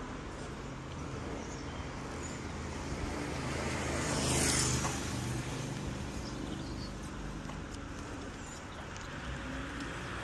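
Riding noise of an electric mountain bike on asphalt under light motor assistance: steady tyre and wind noise with a low hum, and a brief louder rush about four and a half seconds in.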